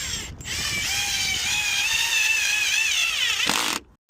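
Cordless power drill motor running with a high whine that wavers in pitch as it works under load, then winds down in pitch and stops as the trigger is released near the end.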